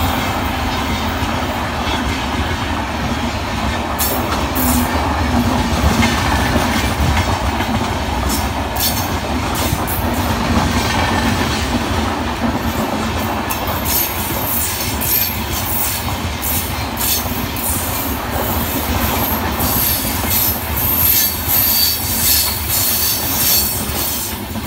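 Indian Railways express train passing at speed: a steady rush and rumble of its coaches' wheels on the rails, with clacks over the rail joints. A high-pitched wheel squeal joins in about halfway through.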